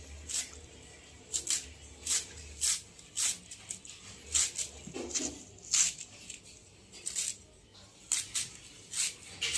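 Knife shaving thin shreds off a hand-held head of cabbage, one short slicing stroke after another, roughly every half second.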